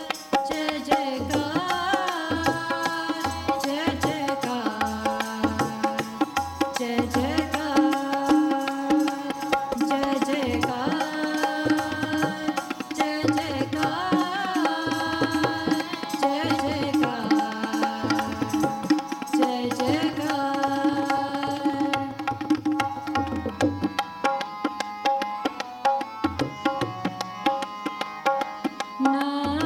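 Sikh keertan: a harmonium and tabla accompany the singing of a shabad, with the congregation's voices joining the lead singer. The tabla keeps a steady rhythm, its bass drum giving low, sliding strokes under the harmonium's held chords.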